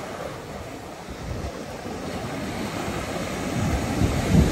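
Ocean surf breaking on the beach, with wind buffeting the microphone in low rumbles that grow stronger near the end.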